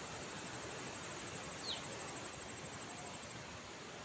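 Streamside ambience: a steady hiss of flowing water under an insect's fast, high-pitched trill that stops about three seconds in. A single short falling chirp comes about halfway through.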